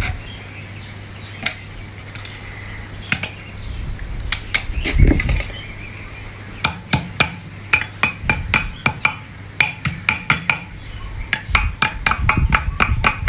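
Metal parts of a center pivot gearbox clinking and being tapped during reassembly: a series of sharp, ringing metal-on-metal strikes, scattered at first and then quicker, about two a second, from halfway through, over a steady low hum.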